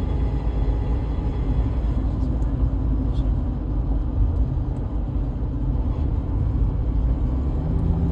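Road and cabin noise of a 2015 Subaru Outback coasting at speed with the throttle closed, carrying a faint steady whine from a worn rear differential that had been run without oil.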